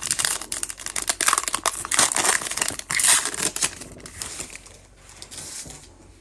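Foil wrapper of a 2021 Panini Prizm baseball card pack crinkling and crackling as it is opened in the hands; the crinkling dies down about four seconds in, leaving a faint rustle as the cards come out.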